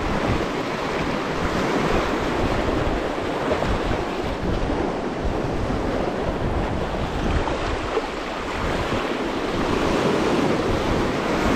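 Sea surf and waves washing steadily, with wind buffeting the microphone in a low, fluttering rumble.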